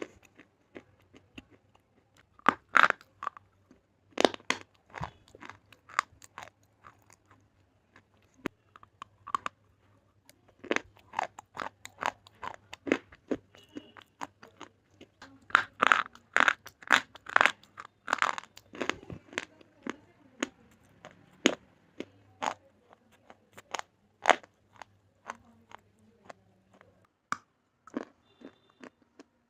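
Slate pencil being bitten and chewed close to the microphone: sharp, dry crunches in irregular clusters, with short pauses between bites.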